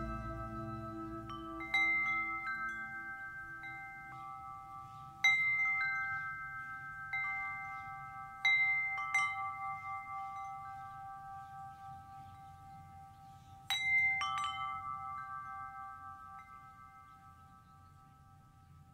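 Chimes struck every few seconds, each strike leaving several clear tones that ring on and slowly die away. A soft low music drone fades out in the first few seconds, and the ringing fades towards the end.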